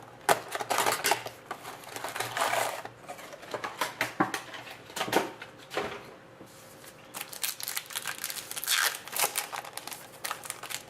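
A box of hockey trading cards being unwrapped and its packs torn open: plastic and foil wrappers crinkling and tearing, with irregular clicks of cardboard being handled.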